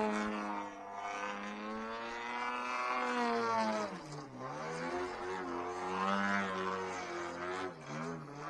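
DA-120 twin-cylinder two-stroke gasoline engine, swinging a Mejzlik 28×10 carbon propeller, running in flight on a 104-inch Extreme Flight Laser aerobatic RC plane. Its note dips and rises several times as the plane manoeuvres. It runs clean and strong on hand-set needles, its earlier engine trouble cleared.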